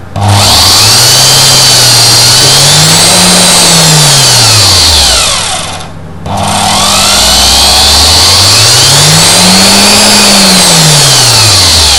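Electric motor run on a dimmer speed control, its whine climbing in pitch as it speeds up and then falling as it slows, twice over. It briefly dies away about six seconds in before speeding up again.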